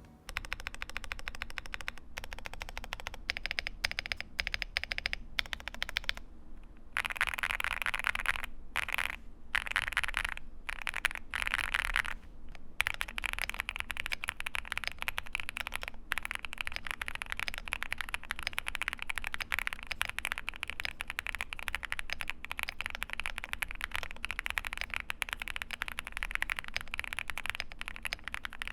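Typing on an IQUNIX Super Nature 80 full-aluminium custom keyboard with Moonstone switches and PBT keycaps: a fast, steady stream of key clicks, with a few brief pauses in the first half.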